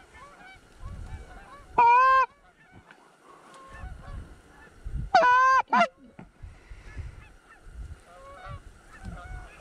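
A goose call blown close by in two loud honks that break upward in pitch, one about two seconds in and a longer one with a short second note about five seconds in, amid fainter honking and clucking from Canada geese throughout.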